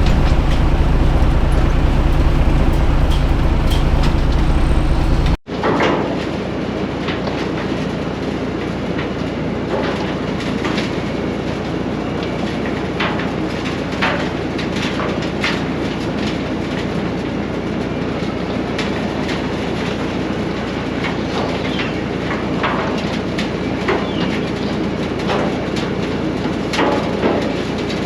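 A heavy diesel truck engine running steadily for about five seconds, then an abrupt cut to a steady mechanical din with frequent irregular clanks and rattles: a road milling machine's conveyor dropping broken asphalt millings into a steel dump-truck bed.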